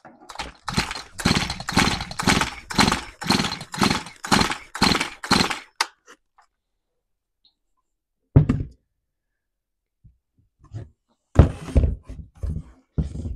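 A Stihl MS211 chainsaw's 35 cc two-stroke engine is cranked over by its recoil starter rope for a compression test. There are about a dozen quick pulls, about two a second. Later come a few heavy thunks as the saw is set down on the bench.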